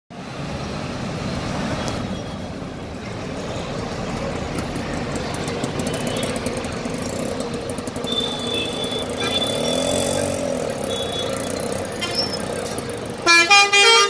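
Busy road traffic with bus engines running, short high horn toots about eight and ten seconds in, and an engine note rising and falling around ten seconds. Near the end a loud horn blares in about three quick blasts, its pitch stepping between notes.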